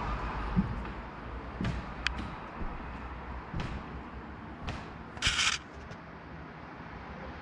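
Scattered soft footsteps and knocks on the wooden floor of a small timber chapel, over quiet room tone, with a short rustle about five seconds in.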